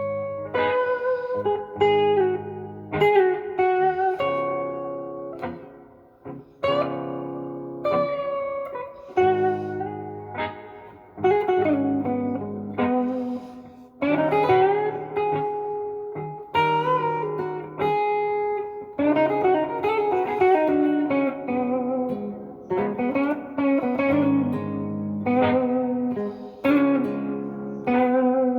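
Gibson SG Special electric guitar on its neck pickup, played clean-to-driven through a Fender Blues Junior IV amp, playing slow blues lead lines in Ab minor with string bends, over sustained lower chord notes.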